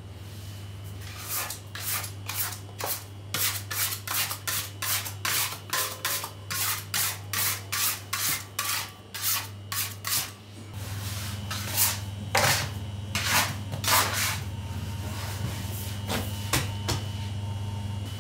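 Industrial fork-type dough mixer kneading a large batch of bread dough. A steady motor hum runs under a rhythmic swish and slap of dough against the bowl, about twice a second. After about ten seconds the hum grows louder and the swishes thin out to a few.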